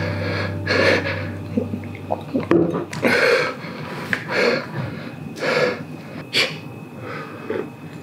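A series of short breathy sounds from a person, roughly one a second, with a few light clicks about two seconds in.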